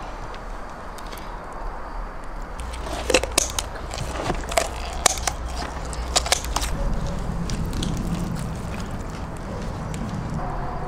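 Tandoor-roasted chickens being pushed off metal skewers: crackling of the crisp roasted skin and meat tearing, with a run of sharp clicks of the metal skewers in the middle.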